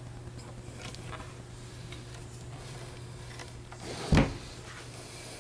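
Steady electrical hum from a plugged-in electric guitar rig, with a few faint clicks and one sharp low thump about four seconds in: handling noise on the live guitar or its cable.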